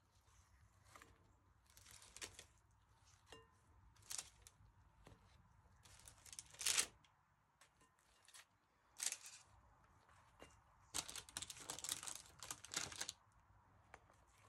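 Crisp baked puff-pastry cheese sticks crackling and flaking as gloved hands break them and lift them off baking paper into a glass bowl, with the paper crinkling. The sounds come in irregular short bursts, with a dense run of crackling near the end.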